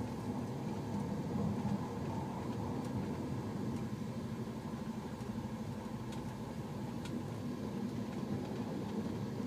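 Steady low engine and road rumble heard from inside a coach bus's passenger cabin, with a few faint ticks.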